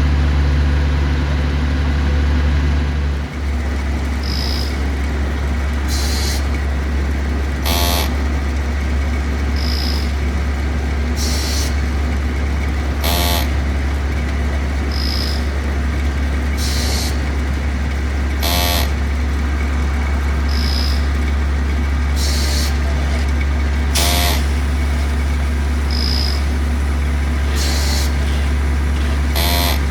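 A heavy engine running steadily with a deep hum. Over it, a repeating cycle about every five seconds: a short high beep, a short hiss, then a sharp clank with a brief ring.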